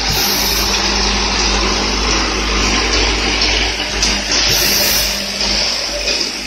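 Automatic cap assembly machine running: its vibratory bowl feeder hums steadily under a dense rattle of plastic caps moving through the feeder and along the assembly rails. Two short bursts of hiss break through, one near the start and one about four and a half seconds in.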